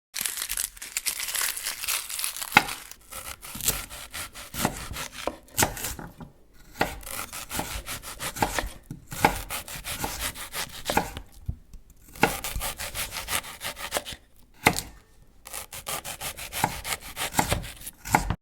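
Rough scraping and rubbing noise in runs broken by short pauses, with scattered sharp clicks.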